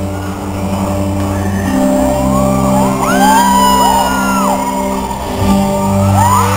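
Instrumental backing music with steady held chords plays through a PA in a large hall, while fans shriek in high rising-and-falling screams, twice.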